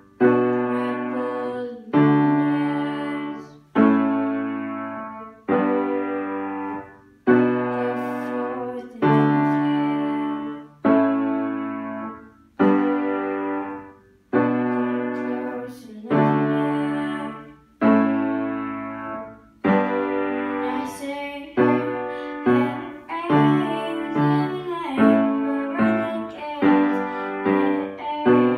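Yamaha piano played solo: full chords struck about every two seconds, each left to ring and fade. Some two-thirds of the way through the playing quickens to notes about every second.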